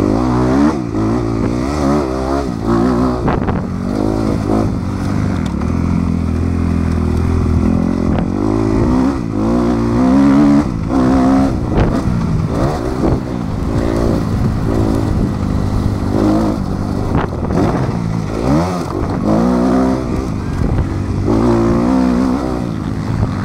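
Motocross bike engine revving up and dropping back over and over as the rider accelerates, shifts and backs off along the track.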